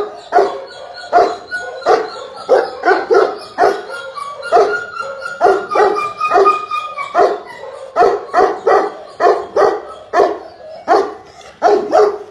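Large male Bakarwal dog barking over and over in quick runs of short, deep barks, two or three a second.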